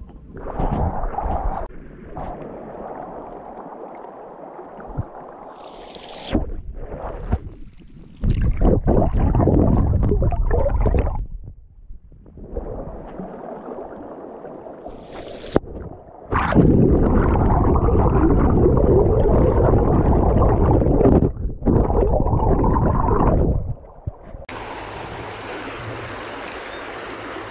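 Stream water rushing and gurgling close to a GoPro's microphone, the sound jumping abruptly in level and character several times where clips are cut together.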